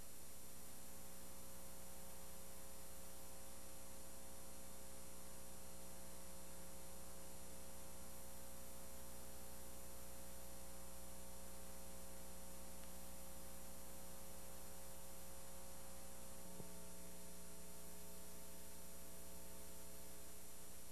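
Steady electrical hum with hiss and no other sound. A faint click comes near the end, after which the hum's tones change slightly.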